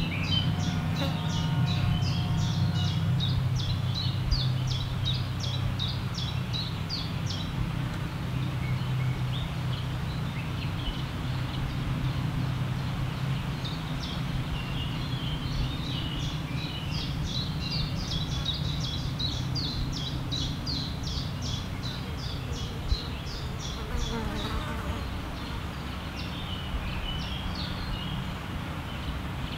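A flying insect buzzing with a low, steady hum close to the microphone, loudest in the first dozen seconds and then fading. Over it, a rapid series of short, high chirps repeats about three to four times a second, stops for a few seconds, then starts again.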